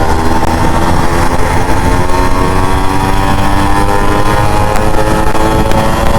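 Yamaha RX100's two-stroke single-cylinder engine running at fairly steady revs.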